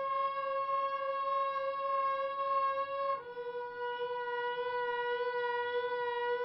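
Background music score: a single long held note, rich in overtones, that steps down to a slightly lower note about three seconds in and holds there.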